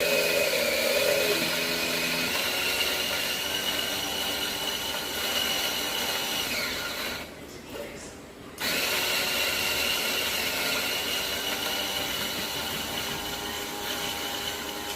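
Electric grinder motor running with a steady high whine. It winds down about seven seconds in and starts up again abruptly a second and a half later.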